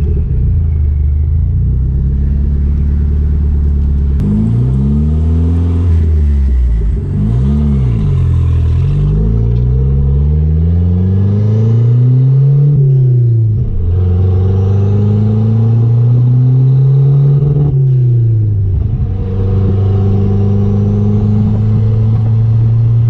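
Chrysler Conquest's turbocharged 2.6-litre G54B four-cylinder engine pulling hard through the gears, its pitch climbing and dropping back at each shift, twice near the middle and end. The engine is running rich under boost, which the owners read as too much fuel at wide open throttle.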